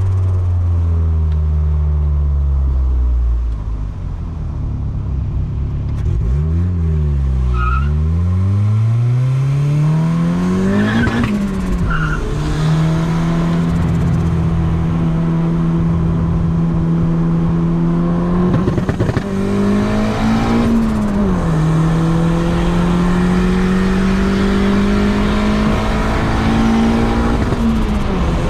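Turbocharged Honda D16Y8 four-cylinder engine in a Civic under way: it slows, then pulls with a steeply rising pitch for about four seconds before the revs drop at a shift. Short chirps as the revs fall fit turbo flutter (compressor surge) on lift-off; afterwards it cruises at steady revs with two more short rises and drops.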